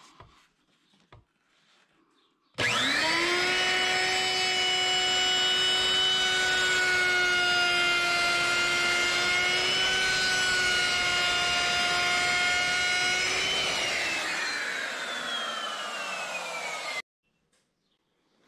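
Makita router starting with a quick rising whine, running steadily as it trims stacked plywood pieces flush to a template piece, then switched off and spinning down with a long falling whine before the sound cuts off suddenly.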